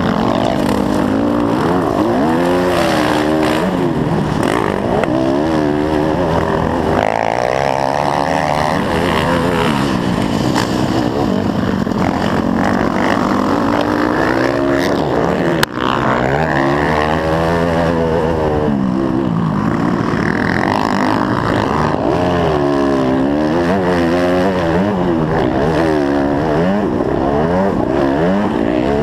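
Dirt bike engine heard from on board, revving up and falling back again and again as the rider works through the gears on a motocross track. A single sharp knock cuts in about halfway through.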